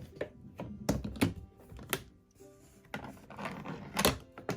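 Several irregular plastic knocks and clicks from handling a portable washing machine's spin dryer as it is opened after the spin cycle to take the clothes out.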